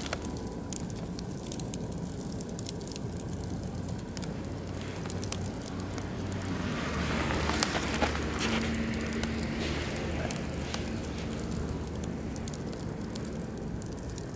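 Oak and beech wood fire crackling, with scattered sharp pops and a steady low rush of flame. The hiss swells for a couple of seconds about halfway through.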